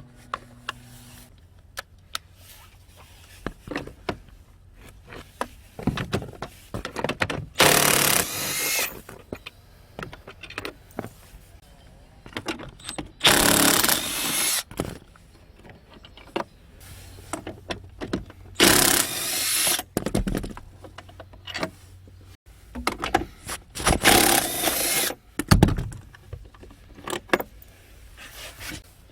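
Power tool, such as a drill or impact driver, run in four short bursts of about a second each, with clicks and knocks of tool and metal parts between them; the bursts fit seat mounting bolts being undone.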